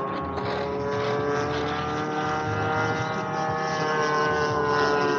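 Gas engine of a radio-controlled Extra 300 aerobatic model plane running in flight, a steady propeller drone whose pitch wavers slowly up and down. The engine has been missing, which the pilot thinks might have to do with the ignition batteries he changed.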